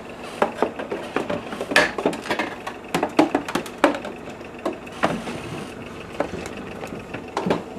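Plastic refrigerator door shelf and fittings being handled and pushed back into place: many irregular light clicks, knocks and rattles.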